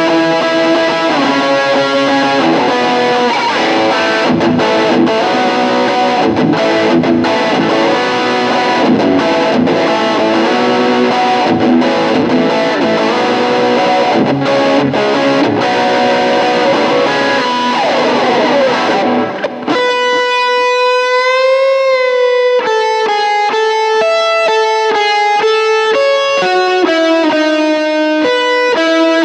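SQOE SEST250 electric guitar played through an M-VAVE Cube Baby effects unit with an overdriven tone, running a lead solo over a full band mix. About two-thirds of the way in the band drops out and the guitar goes on alone in long held notes, one of them bent with a wide vibrato.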